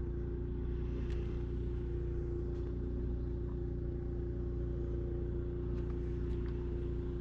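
Snowblower engine running at a steady speed, a constant low drone with a steady hum.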